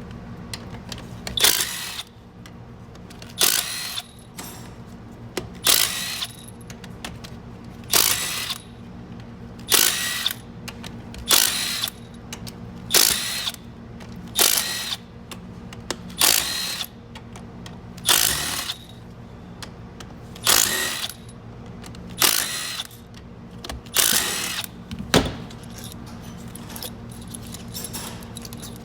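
Power driver spinning in a long series of short bursts, about one every one to two seconds, each with a brief motor whine, stopping a few seconds before the end. It is running out the bolts holding the transmission's pump assembly. A steady low hum runs underneath.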